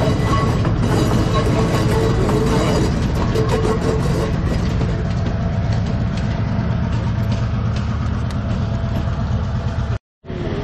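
Diesel-hauled passenger train passing: a steady low engine drone with wheels clicking over the rail joints for the first few seconds, growing a little quieter as it moves away, then cutting off suddenly near the end.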